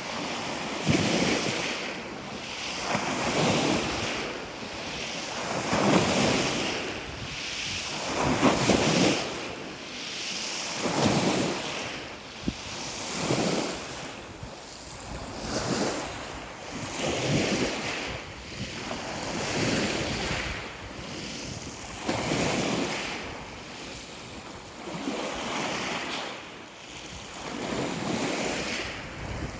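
Small sea waves washing in on the shore, one swell about every two and a half seconds, with some wind buffeting the microphone.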